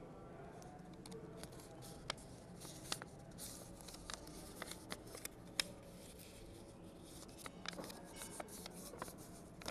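Paper craft pieces being handled and pressed together by hand: faint rustling with many small scattered clicks and taps, over a steady low room hum.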